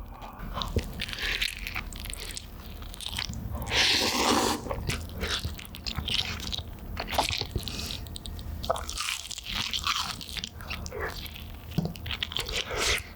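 Close-up eating of Chicago-style cheese and meatball pizza: crunchy bites into the crust and wet chewing, with many short crackles, the biggest crunch about four seconds in.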